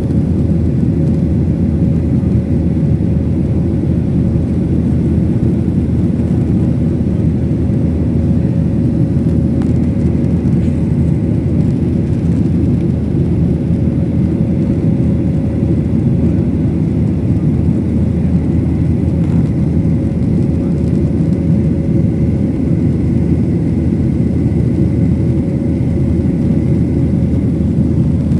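Lion Air airliner's engines running steadily after takeoff: a loud, even low rumble with a thin steady hum above it.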